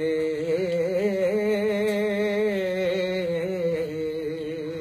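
A man singing one long held note of a Punjabi folk song, a drawn-out vowel with a wavering pitch and no words.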